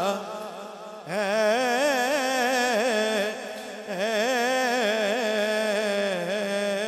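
A man's solo voice singing a naat, an Urdu devotional poem, into a microphone. He holds long wordless notes with a wavering, ornamented pitch, and a new phrase starts about a second in.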